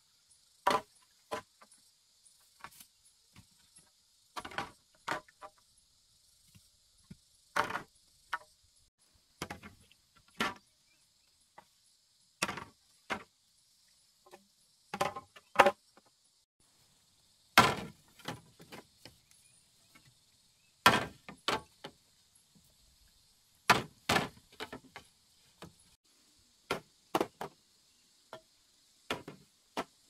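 Irregular sharp knocks and clatters of hard objects, one every second or two, some louder than others, over a faint steady high insect hum.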